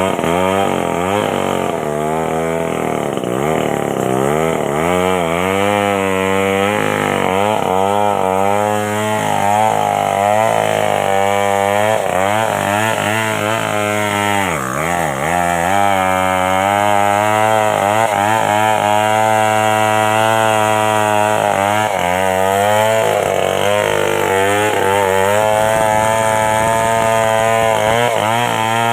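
Stihl two-stroke chainsaw running hard, its engine pitch repeatedly dipping and recovering through the first half as it cuts under load, then holding steadier.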